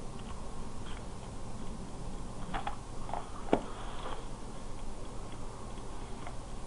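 A few scattered clicks and taps of a computer keyboard and mouse, with the sharpest click about halfway through, over a steady low background noise.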